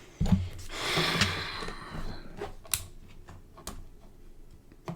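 Desk handling noise: a rustle through the first couple of seconds and a scattering of sharp, separate clicks of small hard objects being picked up and set down.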